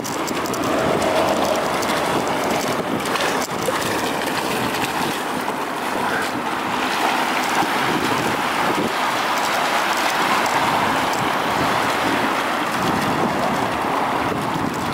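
Steady wind rushing over the camera microphone, with small waves lapping in the shallows and a dog wading through the water.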